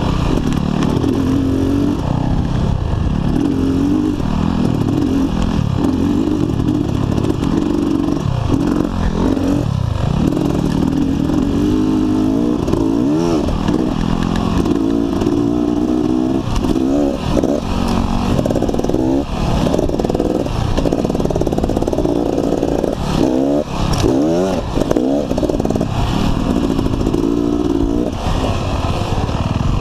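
Dirt bike engine running while it is ridden, its pitch rising and falling as the throttle opens and closes. There are several quick rising revs in the second half.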